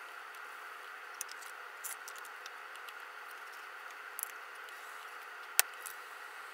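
Handling at a potter's wheel: light clicks and taps over a steady hiss, then one sharp knock a little over five seconds in.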